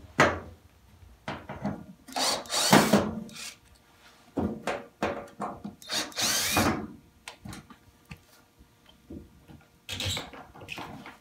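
Cordless drill-driver whirring in several short bursts, two of them about a second long, as it backs screws out of a washing machine's lower front plastic panel, with small clicks and knocks in between.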